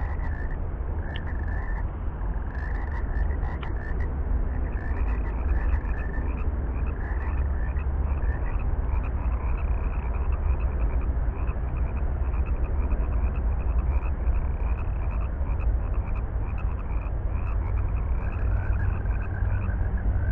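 Frogs calling: runs of many short, quick croaks repeating throughout, over a steady low rumble.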